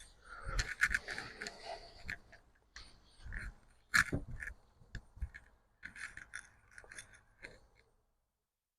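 Irregular clicks, knocks and rubs from a cordless circular saw being handled, with the sharpest click about four seconds in.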